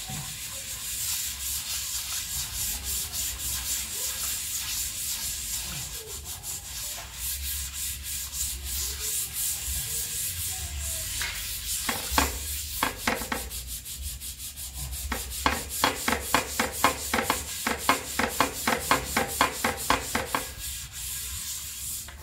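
Soapy steel skid plate scrubbed by hand with back-and-forth rubbing strokes, as it is washed before painting. The scrubbing is steady at first. About halfway through it turns to quick, even strokes, roughly three or four a second, then stops just before the end.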